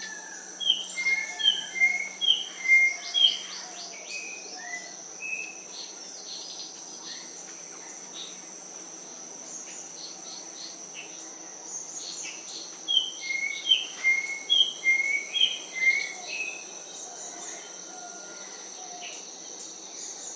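A bird sings two bouts of short, clear whistled notes, about eight to ten notes in quick succession each. The first bout comes at the start and the second around the middle. Under it runs a steady high-pitched drone of insects such as crickets or cicadas.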